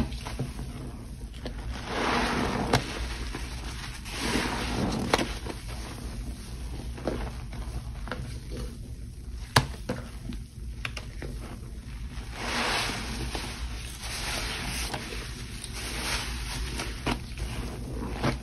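Frothy water mixed with Pine-Sol, Lestoil and Murphy's Oil Soap being swished and sloshed, in swells every two to four seconds, with one sharp click about halfway through.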